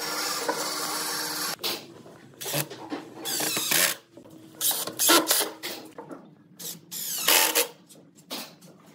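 Cordless drill running in a series of short trigger bursts, driving screws into a pine frame. A steady mechanical noise fills the first second and a half before the bursts begin.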